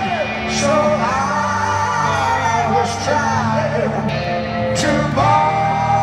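Live rock power ballad: male vocals hold long sung notes over the band, amplified through the PA and heard from the audience in a large concert hall.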